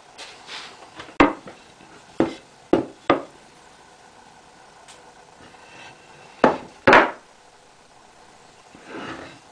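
Homemade pallet-wood mallet knocking against wooden boards as it is handled and set down: a sharp wooden knock about a second in, three more between two and three seconds, and the two loudest near seven seconds, with a soft scrape near the end.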